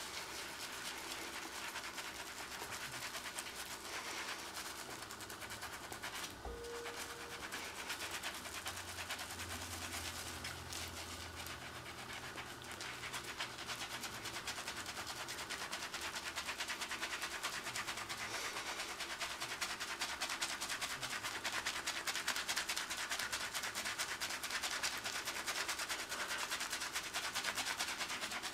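Hands being scrubbed: a fast, steady run of rasping scrubbing strokes against skin, getting louder from about halfway through.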